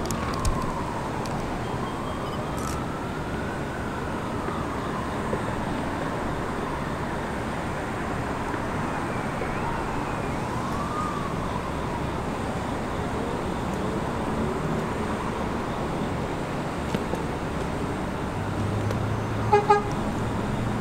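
R211A subway train moving slowly through a rail yard: a steady rumble with faint wheel squeals that rise and fall in pitch now and then. Near the end come two short toots in quick succession.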